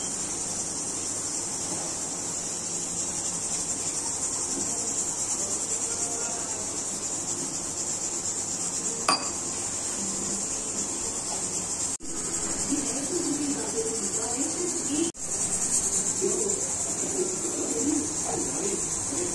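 Steady high-pitched chirring of insects, like crickets, continuing throughout, with a single faint click about nine seconds in and two brief drops in sound partway through.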